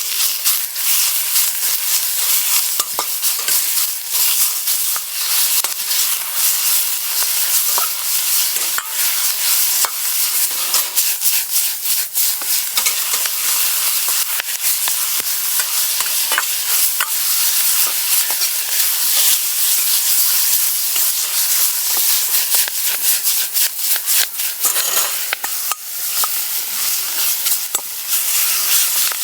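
Food sizzling as it is stir-fried in a pan, a steady frying hiss with frequent sharp clicks and scrapes of the utensil against the pan.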